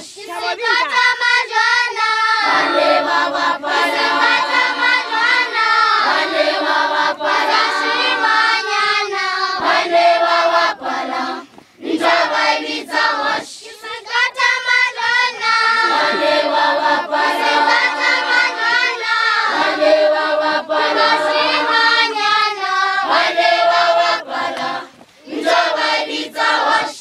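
A group of schoolchildren singing together as a choir, with a few short breaks between phrases.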